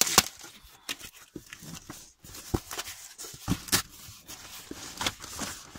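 A cardboard shipping box being opened by hand: irregular scraping, rustling and knocks as the flaps are pulled apart.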